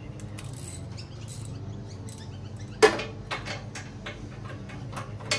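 Scattered sharp clicks and knocks of tools and bolts on the steel bullbar mounts as it is bolted up under the bumper, with one loud clack about three seconds in and another near the end.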